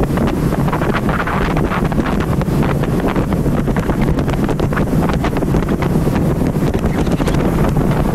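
Wind buffeting the microphone on a motorboat running across open water, over the steady drone of its engine and the rush of water past the hull.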